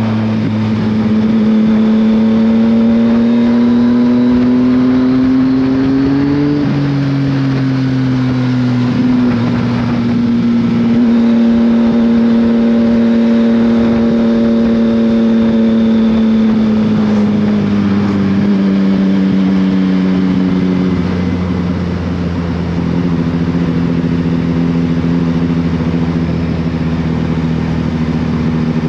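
Yamaha Tracer 900GT's three-cylinder engine through an Akrapovic exhaust, pulling under acceleration with the pitch climbing for about six seconds. The pitch drops sharply at a gear change, then holds at fairly steady revs and eases down gently later on.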